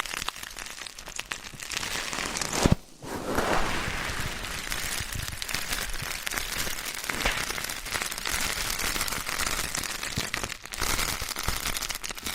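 Ear pick scraping and scratching in the ear, a close, dense crackling with many small clicks. There is one sharp louder click just under three seconds in.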